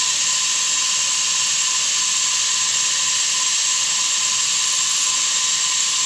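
Milling machine spindle running with a small end mill cutting into a stainless steel rod: a steady high-pitched whine over a continuous hiss.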